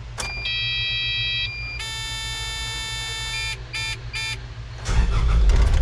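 Electronic buzzer tones from the Kubota KX080 excavator's cab: a held tone that steps in pitch, a longer fuller tone, then two short beeps. A loud low rumble starts near the end.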